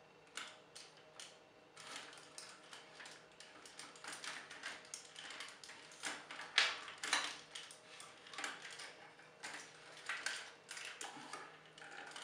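Hard plastic parts of a large transforming action figure clicking and clacking as it is handled and its pieces are fitted and adjusted, with a louder clack about six and a half seconds in.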